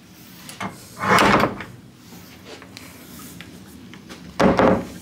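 Wooden closet doors being pushed shut, with one door bump about a second in and another near the end.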